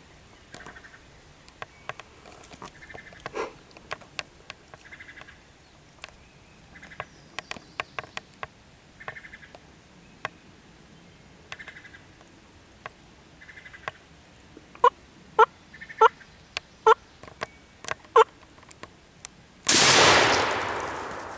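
Wild turkeys clucking and stepping in dry leaves, with a run of about six loud, sharp clucks near the end. A single shotgun blast follows and rings out, fading over a couple of seconds.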